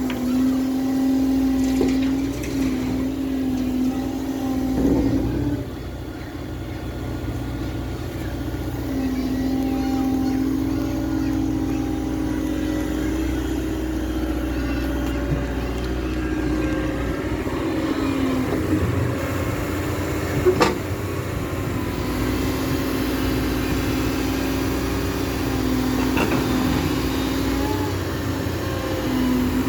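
Cat M315F wheeled excavator working: its diesel engine runs steadily with a hum that rises and falls in pitch as the machine is worked. A single sharp knock comes about two-thirds of the way through.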